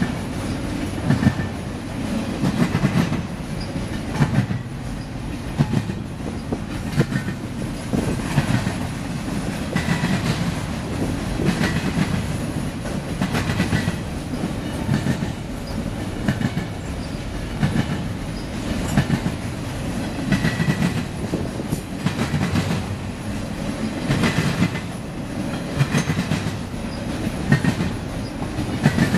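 Double-stack intermodal container cars rolling past, a steady low rumble with wheels clacking over rail joints every second or two. Now and then a faint, brief wheel squeal.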